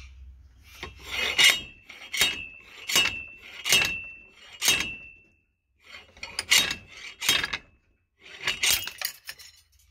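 Homemade slide hammer being worked to pull a staked U-joint bearing cap out of a Subaru tailshaft yoke held in a vise: a run of sharp metallic clanks, about one a second, each leaving a brief ringing note. After a short pause a few more blows follow.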